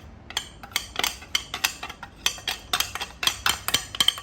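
A spoon clinking and scraping in a clay pot as mango pieces are mixed with chilli powder, in quick knocks at about four a second.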